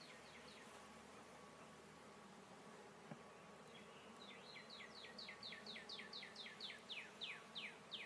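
Honeybees humming faintly around an open hive. Over the second half, a series of quick whistled notes, each falling in pitch, comes about three a second and grows louder.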